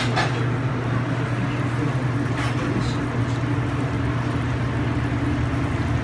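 A steady low mechanical hum, with a couple of faint light taps about halfway through.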